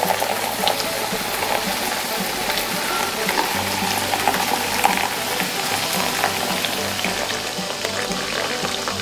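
Clear soda pouring into a glass and fizzing hard, a dense hiss of popping carbonation bubbles.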